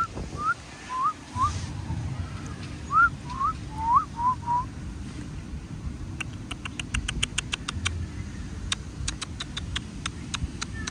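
Shiba Inu whining in excitement: a run of short, high, rising squeaks in quick clusters. They stop about halfway through, and a rapid series of sharp clicks follows.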